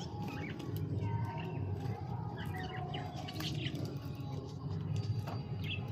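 Pet birds in a cage chirping in short, scattered calls, over a steady low hum.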